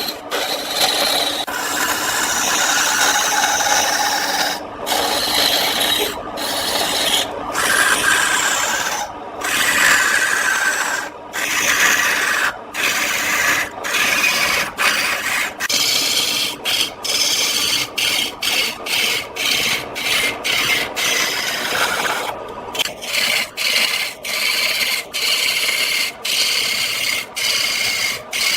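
Turning tool scraping against wood spinning on a lathe, a loud, steady rasping that breaks off briefly now and then. In the second half the contact comes in short, regular passes of about two strokes a second.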